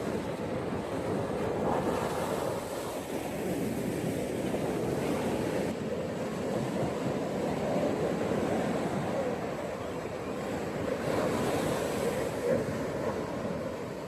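Ocean waves breaking and washing onto a beach, a continuous surf rush that swells and eases gently, with some wind.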